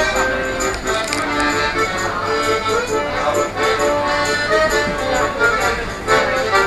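Accordion playing a tune live in a moving train carriage, held chords under a melody of sustained reedy notes.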